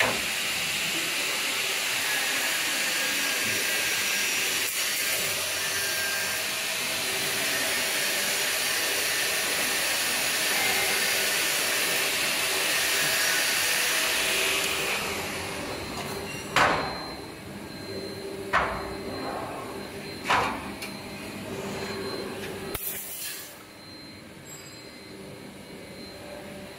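A steady loud hiss of factory machinery at the wire mesh welding machine, fading after about fifteen seconds. Then four or five sharp metal clanks as welded wire grids are set down on the concrete floor.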